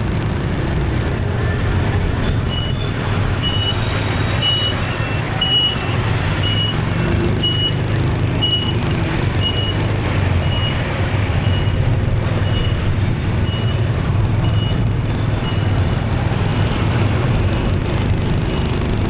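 Motorbike riding in city traffic: steady engine and road rumble, with a short high electronic beep repeating about once a second through most of the stretch, stopping a few seconds before the end.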